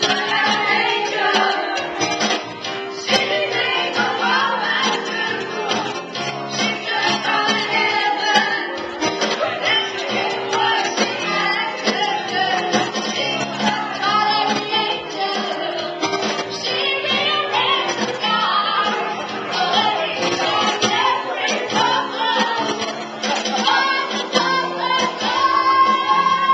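Music with singing: several voices, female among them, over instrumental backing.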